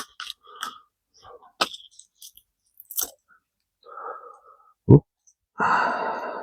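A nylon pouch and a pocket chainsaw being handled: scattered clicks and rustles, a single heavy knock about five seconds in, then a longer rasping rustle near the end.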